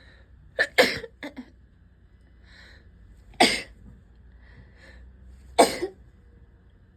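A person with a cold in a fit of sneezing and coughing: three sharp, explosive bursts about two and a half seconds apart, the first followed by a couple of smaller ones, with faint breaths drawn in between.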